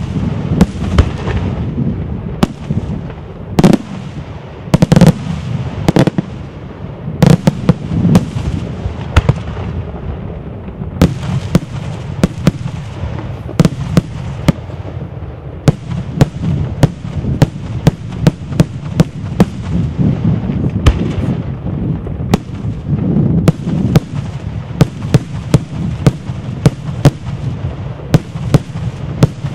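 Italian daytime fireworks display: a dense barrage of shells and salutes bursting overhead. Sharp loud bangs come several times a second over a continuous rumble of detonations.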